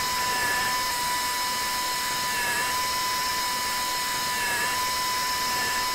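Dental implant handpiece running a 4.3 mm surgical twist drill at low speed, cutting an implant site into an artificial jaw model: a steady high whine at one constant pitch with a rough cutting hiss.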